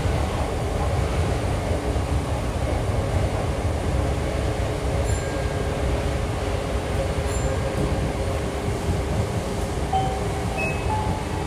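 A Hankyu 5300-series electric train standing at the platform, its onboard equipment giving a steady hum over a low rumble. Near the end, a few short electronic chime notes begin.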